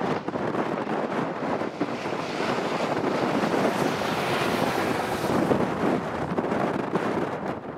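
Strong storm wind rushing across the microphone, swelling in the middle.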